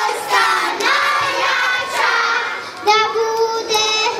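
Children singing a song together, a steady melody of held notes.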